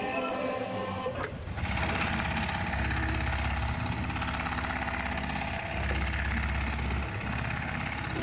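Computer-controlled automatic sewing machine running and stitching steadily, with a brief dip about a second in before it carries on.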